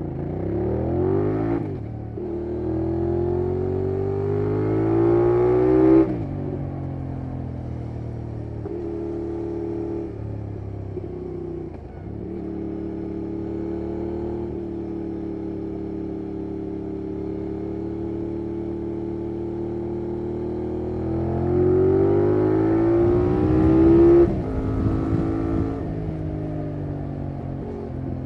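2023 Benelli 752S's 754 cc parallel-twin engine and exhaust under way. The pitch rises hard on acceleration for the first six seconds and drops sharply at each gear change or throttle close, then holds steady through a long cruise with small throttle changes. A second hard pull rises from about 21 seconds in and cuts off sharply about three seconds later.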